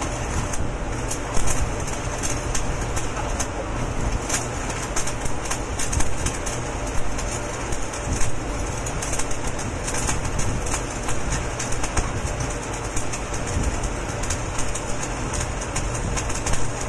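Electric arc welding on a large spiral steel pipe: the arc crackles and sizzles steadily, with many fine pops.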